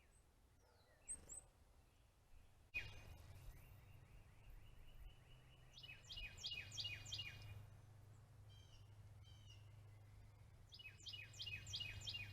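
A songbird singing: a run of quick falling notes, then a brighter phrase of about five notes, the phrase sung again near the end, over a low steady hum. Faint high chirps come about a second in.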